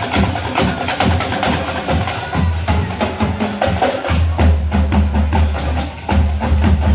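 Marching band music led by drums and percussion beating a fast, steady rhythm over low held bass notes.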